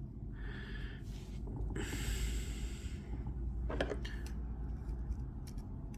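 Two breaths out through the nose close to the microphone, with a few small clicks of metal lock parts being handled, the clearest about four seconds in.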